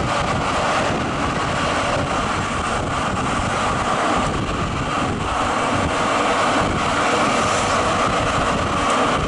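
Zürich tram running along the street, heard through an open window: a steady running noise with a constant whine, mixed with wind on the microphone.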